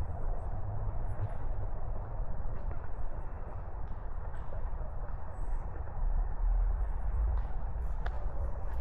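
Steady low rumble of distant city traffic, heavier from about six seconds in, with scattered faint high chirps and ticks.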